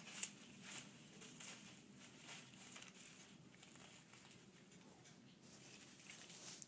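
Faint rustling and light tapping, with one short sharp sound about a quarter of a second in.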